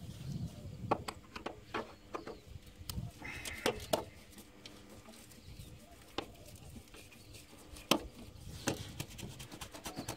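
Irregular light clicks, knocks and rustles of hands working a corrugated rubber air-intake hose and its clamp, with one sharper knock about eight seconds in.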